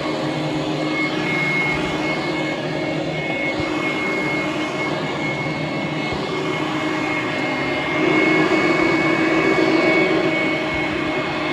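Hoover Conquest upright vacuum cleaner running over carpet: a steady motor whine with a thin high tone over it. It grows somewhat louder for a couple of seconds about eight seconds in.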